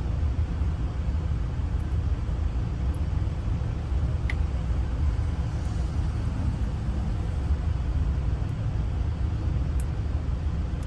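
Steady low rumble of a running vehicle, with one faint short click about four seconds in.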